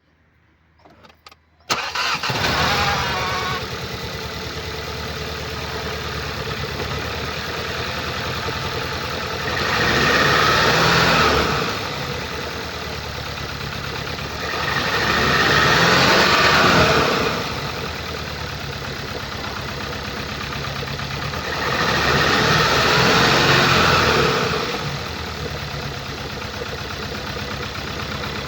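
A 2014 Skoda Octavia RS's 2.0-litre four-cylinder petrol engine is started, catching almost at once, then idles and is revved three times, each rev rising and falling over about two seconds. It runs with the noise of a defective ignition coil and spark plug on cylinder 3.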